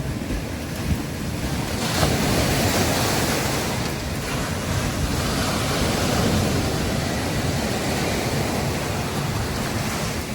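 Sea surf washing on a beach, with a wave breaking more loudly about two seconds in, over a low rumble of wind on the microphone.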